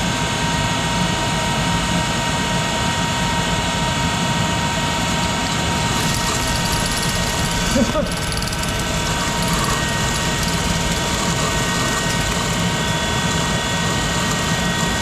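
1951 Monarch 10EE lathe running under power feed, taking a deep turning cut: a steady machine noise with a low hum and a constant whine. A brief small sound about eight seconds in.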